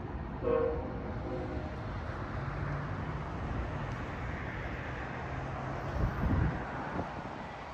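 Chevrolet Silverado pickup moving slowly to park: a steady run of engine and road noise with wind on the microphone, and a few low thumps late on.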